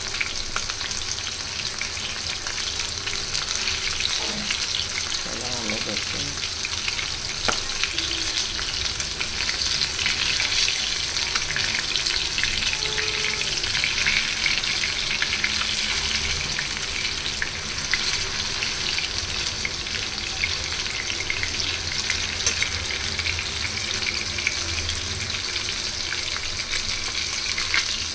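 Masala-coated fish pieces shallow-frying in hot oil over a high gas flame: a steady sizzle with constant small crackles and spatters.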